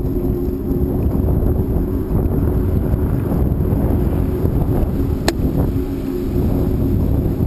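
Electric bike motor humming steadily under throttle on a climb, over heavy wind rumble on the microphone, with a single sharp click about five seconds in.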